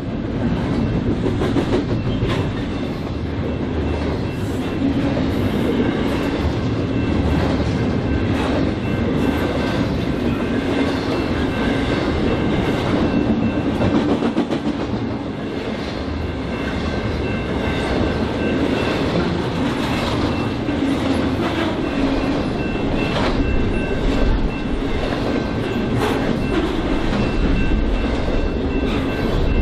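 BNSF freight train cars rolling past, wheels clicking irregularly over the rail joints, with a thin steady high tone running through most of it.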